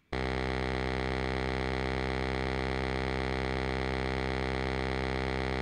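One long, steady held note from a saxophone sample looped in Ableton's Simpler sampler. The sample has been transposed down a semitone from C sharp and detuned so that it sounds as a C.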